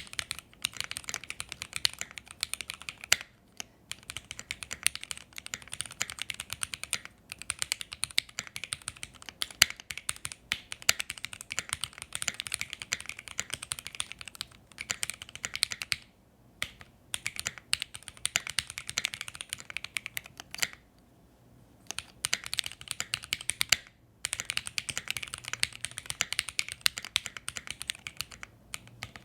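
Continuous typing on a Keychron Q1 gasket-mount aluminium mechanical keyboard fitted with lubed Alpaca linear switches and a tape mod: a rapid stream of key presses, broken by a few short pauses.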